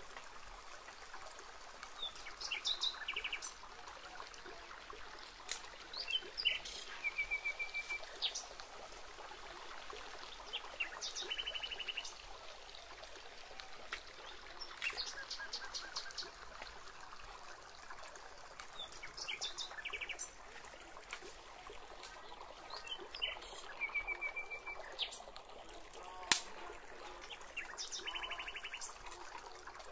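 Wild birds calling at intervals: short trilled phrases and quick series of chirps, repeated every few seconds over a steady outdoor hiss. Near the end there is a single sharp knock of wood as sticks are laid for a fire.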